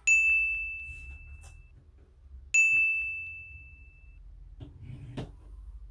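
Two bright bell-like dings, about two and a half seconds apart, each a single clear tone that rings out and fades over a second or so.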